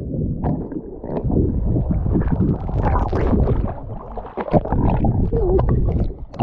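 Muffled underwater rumble and gurgling of lake water heard through a submerged microphone, then splashing and sloshing as a swimmer comes back up at the surface.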